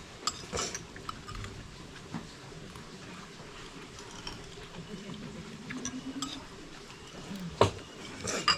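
Cutlery clinking against crockery: a handful of sharp clicks and knocks, loudest near the end, over faint room murmur.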